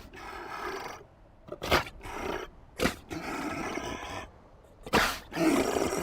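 An animal calling in several rough, noisy bursts of about a second each, with sharp clicks between them.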